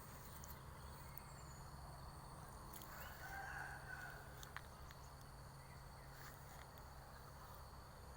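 Quiet outdoor ambience with a steady low hum and a faint bird call about three seconds in.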